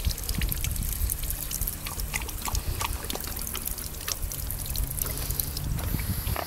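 Water trickling and splashing from a drinking-fountain tap into a stone basin, with small irregular splashes.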